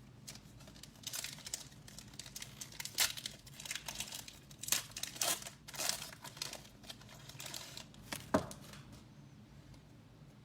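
Wrapper of an Upper Deck hockey card pack being torn open and crinkled by hand, in irregular crackles for several seconds, with one sharp click near the end.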